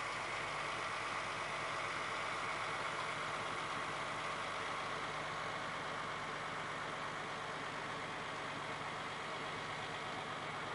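Boat engine running steadily, with a constant hum and a wash of noise.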